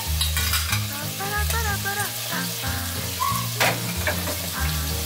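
Beef meatballs sizzling steadily as they sear in hot oil in a stainless steel pot, with a couple of sharper crackles.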